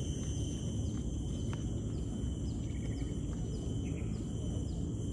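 Insects droning in a steady, unbroken high-pitched tone over a low rumbling noise, with a few faint short chirps.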